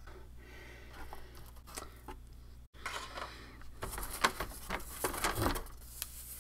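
Hands handling model-kit parts: a few light clicks, then from about four seconds in rustling and light knocking as a stack of thin balsa wood sheets is lifted and shuffled in a cardboard box.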